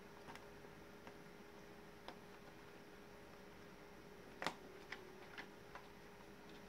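A few faint, scattered plastic clicks and taps as the PC case's power button parts are handled, the loudest about four and a half seconds in, over a faint steady hum.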